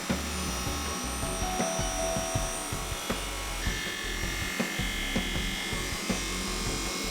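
Background music over the steady whirr of a Prosharp AS 2001 automatic skate sharpener's grinding wheel running a sharpening cycle on a skate blade.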